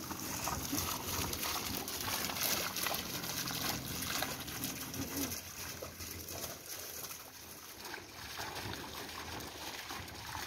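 Hot-spring water spouting from a pipe and splashing into a stone pool: a steady trickling, splashing noise.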